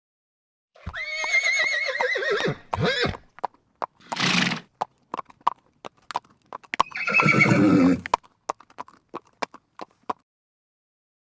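Horse whinnying: a long quavering neigh that falls in pitch, then a short noisy burst, hooves clopping in scattered knocks, and a second, lower neigh about seven seconds in.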